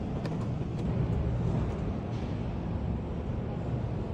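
Steady low rumble of background noise in a large indoor exhibition hall, with a few faint clicks.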